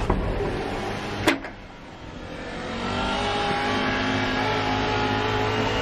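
A sliding balcony door opening along its track, with a sharp knock about a second in. Then a steady machine hum of several held pitches comes in and keeps going.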